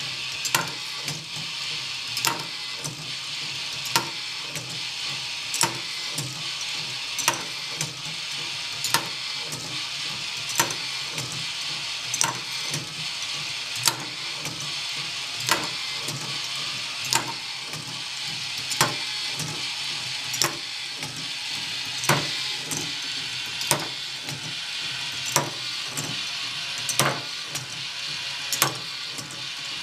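K'nex Industrial Helix Lift running: its motor and plastic gears whir steadily after starting suddenly at the beginning, with sharp plastic clacks about every second and a half and lighter clicks between them as the balls are carried up and run back down the track.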